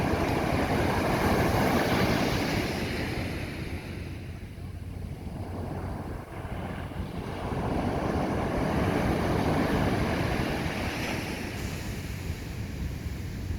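Sea surf: waves breaking and washing up on a beach, swelling twice a few seconds apart, with wind rumbling on the microphone.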